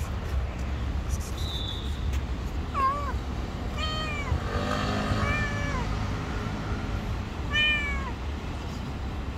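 A calico cat meowing four times, short separate meows spread over several seconds, over a low steady background rumble.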